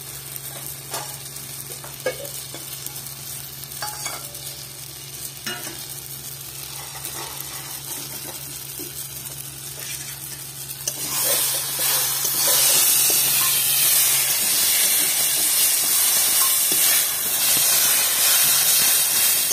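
Spinach sabji sizzling in a kadhai while a metal spatula stirs it, knocking and scraping against the pan now and then. About eleven seconds in, the sizzle grows much louder and stays that way. A steady low hum runs underneath until about fourteen seconds in.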